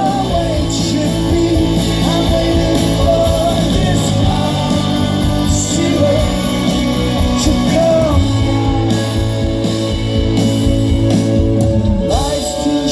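A rock band playing live, picked up on a phone's microphone: a sung lead vocal over guitar, bass and drums. Near the end the sustained low bass notes drop away.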